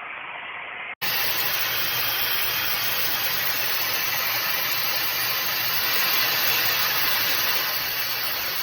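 Hot air styler (webeauty 8-in-1, high-speed motor) blowing a steady rush of air while styling a section of hair. It cuts out for an instant about a second in, then resumes louder, and drops away near the end.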